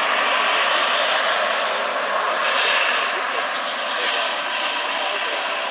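Scale model Agusta A-109 helicopter's PHT3 model turbine running steadily, a constant high whine over the rush of the turbine and rotor blades as it flies low, swelling briefly about halfway through.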